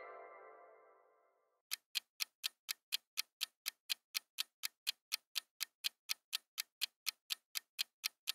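Quiz countdown-timer sound effect: clock-like ticks, evenly spaced at about four a second, starting a little under two seconds in. Before them, in the first second, a ringing sound effect fades out.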